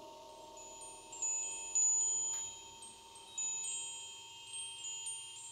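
Chimes ringing in high, lingering tones, struck softly about five times, over a steady low drone.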